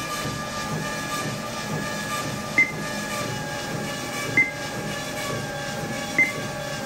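NordicTrack treadmill's drive motor and belt running with a steady whine. The console beeps three times, about a second and a half to two seconds apart, as the speed-down button is pressed to lower the belt speed.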